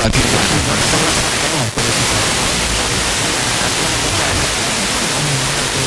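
FM radio receiver hissing with static while it is stepped across the band, a weak distant station faintly wavering under the noise. A click at the start and a brief dropout about a second and a half in come as the tuning changes.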